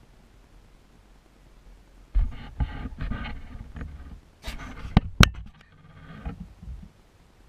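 Hands handling the action camera and its mount: rubbing and knocking on the housing right at the microphone, with two sharp clicks about five seconds in as the camera is turned to a new angle.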